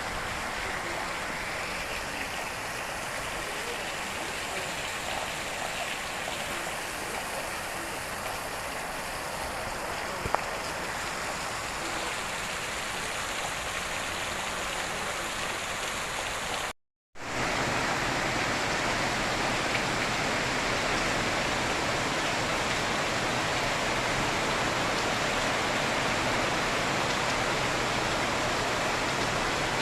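Steady rushing noise of heavy tropical-storm rain and running floodwater. It cuts out for a moment about halfway through and comes back slightly louder.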